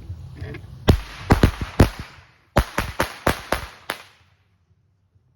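A string of small firecrackers going off: about nine sharp, loud pops in two quick runs, the second starting about two and a half seconds in, each with a short echo, then dying away.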